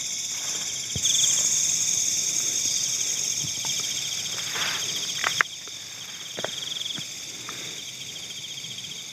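Insects chirring in the forest: a steady, fast-pulsing high trill, with a second hissing insect chorus that cuts off suddenly about five seconds in. A few light knocks and clicks are scattered through it.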